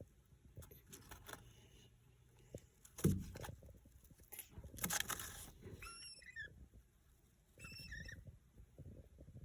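Baby cockatiel giving a few short, quick, falling chirps a little past the middle and a couple more near the end, among soft rustling and scratching, with a louder bump about three seconds in.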